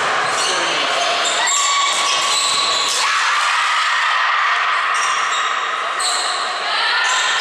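Volleyball rally in a large, echoing sports hall: the ball is struck a few times, sneakers squeak on the wooden floor, and players call out.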